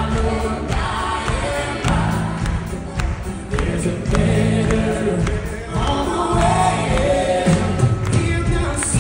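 A live country band playing with a group of singers, a man singing lead into a microphone and other voices joining in, over electric guitar and keyboard.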